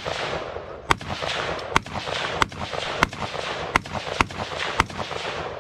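Explosive cracks, about seven in five seconds at uneven spacing, over a steady hiss.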